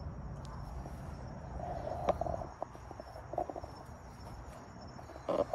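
Crickets chirping steadily, a faint high-pitched trill over low outdoor background rumble, with a sharp click about two seconds in.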